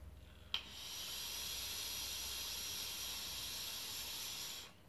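A long draw on a Jomotec Lite 40 W vape kit with a freshly rebuilt coil and the airflow control fully open: a short click, then a steady airy hiss for about four seconds that stops just before the end.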